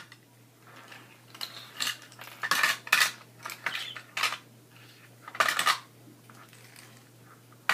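Small toy dishes and utensils from a Barbie kitchen set clacking and clattering as they are handled and set down: a string of separate sharp clacks, loudest about three seconds and five and a half seconds in.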